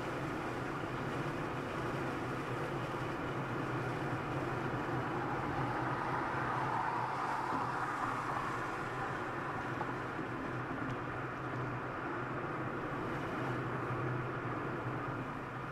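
Steady road and engine noise of a car driving at highway speed.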